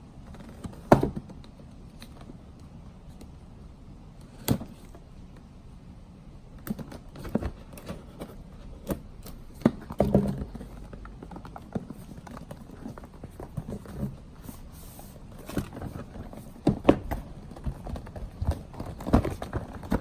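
Ring Video Doorbell 2 box being opened and its packaging handled: irregular clicks, taps and rustles, a few sharp ones early and a busier run of handling from about seven seconds in.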